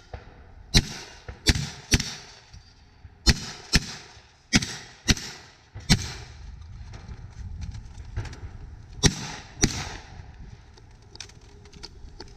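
Rock Island Armory VR-80 12-gauge semi-automatic shotgun firing about ten shots in quick strings and pairs, with a pause of about three seconds before the last two.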